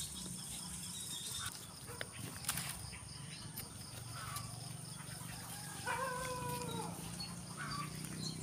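A single drawn-out animal call about six seconds in, lasting about a second and dropping in pitch at the end, over a steady faint high hiss.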